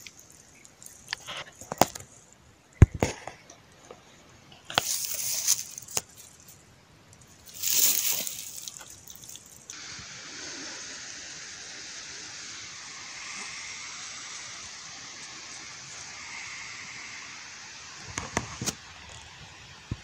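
Leaves and stems of blackberry undergrowth rustling and snapping as they are pushed aside and handled, in a few sharp clicks and two loud rustling bursts. About halfway through, a steady, even hiss takes over, with a few more rustles near the end.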